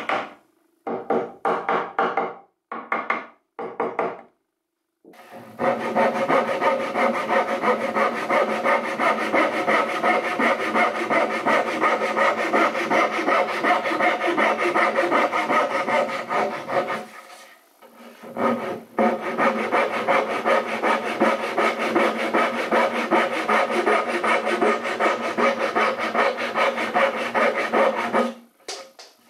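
Thin flexible flush-cut hand saw cutting a protruding wooden key off flush with a pine tray's corner joint. A few short strokes come first, then two long runs of fast, even sawing strokes with a short pause about two-thirds of the way through.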